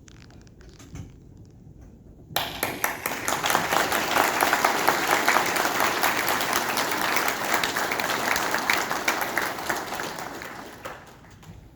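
Audience applauding, breaking out suddenly about two seconds in, holding for several seconds, then dying away near the end.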